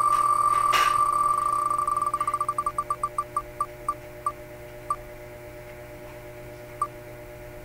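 Wheel of Names web app's spinning-wheel tick sound: rapid ticks that run together at first, then space out steadily as the wheel slows, the last tick about seven seconds in. A faint steady hum lies underneath.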